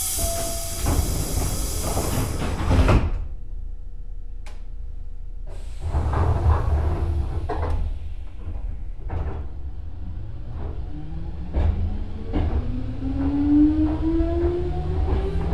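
Nose Electric Railway 5100-series resistance-controlled electric train departing: the sliding doors close with a hiss of air, then the train pulls away with a low rumble and clicks from the rails. Over the last few seconds the traction motors' whine rises steadily as the train accelerates.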